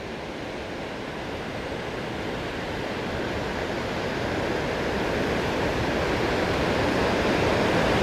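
Water of the Snake River spilling over a low dam and cascading over rocks: a steady rushing noise that grows gradually louder.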